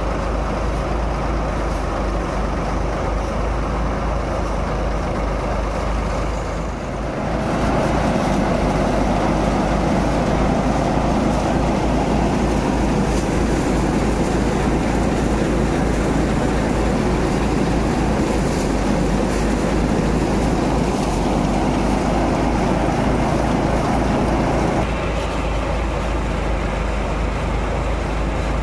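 Tractor-driven paddy thresher running steadily: a loud continuous machine noise from the threshing drum over the tractor engine's even low beat. It grows louder and fuller about seven seconds in and drops back a little near the end.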